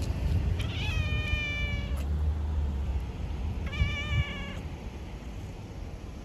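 Tabby cat meowing twice: a long meow of about a second, then a shorter one about three seconds later. A low rumble runs underneath and fades after the second meow.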